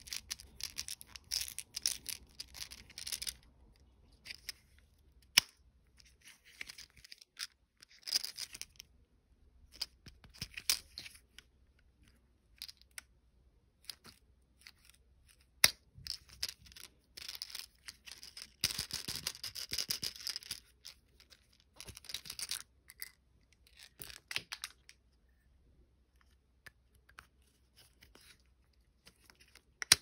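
Crinkly plastic wrappers on monkey-shaped lollipops rustling and tearing in bursts as they are handled and unwrapped, with a few sharp clicks in between.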